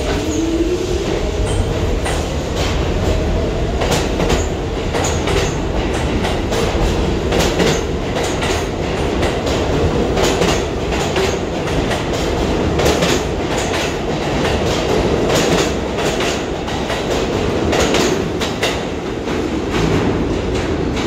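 Pullman-Standard R46 subway train pulling out of the station. The traction motors whine, rising in pitch over the first few seconds and then holding steady, while the wheels clack repeatedly over the rail joints as the cars pass.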